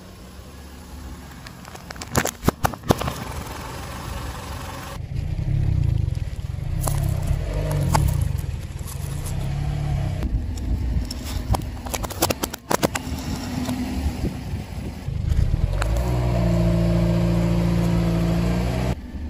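A car tyre rolling over and crushing small objects: a crisp packet, a pile of coins and plastic paint pots, giving sharp crackles, crunches and clinks in several bursts. Under it runs the low hum of the car's engine, which holds a steady pitch near the end.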